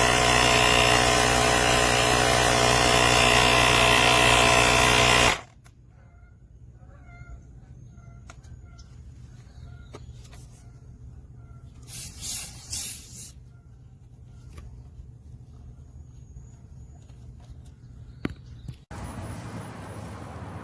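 Cordless portable tire inflator's compressor running steadily with a buzzing motor pitch, then shutting off abruptly about five seconds in. A few faint clicks and three short hissy bursts follow, then a steady noise starts suddenly near the end.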